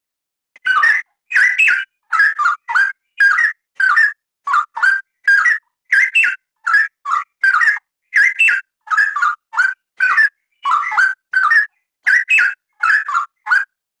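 Straw-headed bulbul (cucak rawa) singing a long run of short, rich whistled phrases, about two a second, starting just under a second in and stopping shortly before the end.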